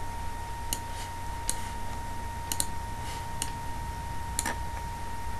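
Computer mouse clicking: about seven short, sharp clicks spread irregularly through the stretch, the loudest about four and a half seconds in. Under them runs a steady low electrical hum with a faint steady tone.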